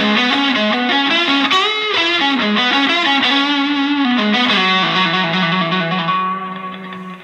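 Fender Player Plus Stratocaster electric guitar playing an overdriven single-note lead line, with string bends about two seconds in. It ends on a long held note that fades away near the end.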